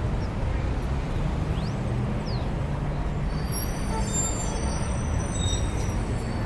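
Steady road traffic noise with a vehicle engine running, and a few faint high thin tones about halfway through.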